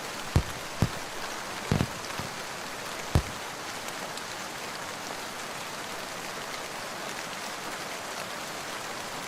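Steady rain falling, with four sharp taps or drips standing out in the first few seconds.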